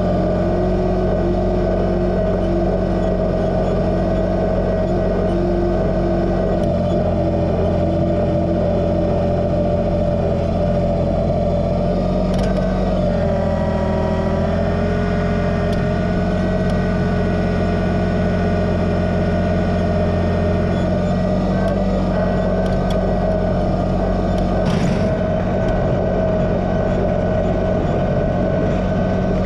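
Kubota BX2380 sub-compact tractor's three-cylinder diesel engine running steadily under work, with its pitch shifting about halfway through and a single knock near the end.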